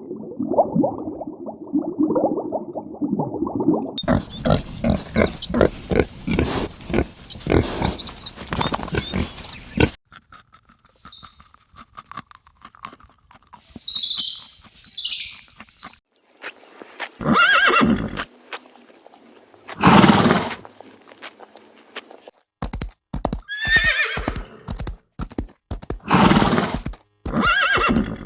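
Horses neighing and whinnying, several separate calls, with a run of rapid rhythmic strikes in the first part.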